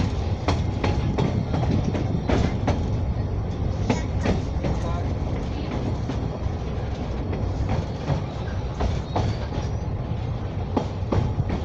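Narrow-gauge children's railway train riding along, heard on board: a steady low rumble of running gear with irregular clicks and knocks as the wheels pass over rail joints and the carriage rattles.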